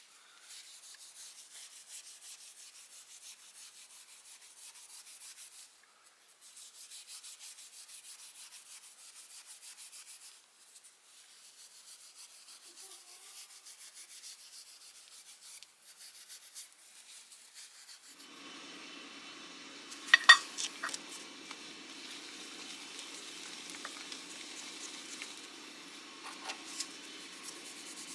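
Metal being scrubbed and abraded by hand, in hissy strokes with short pauses. About two-thirds of the way in, a small rotary tool with an abrasive wheel takes over with a steady hum and continuous grinding hiss, and a couple of sharp ticks just after it starts.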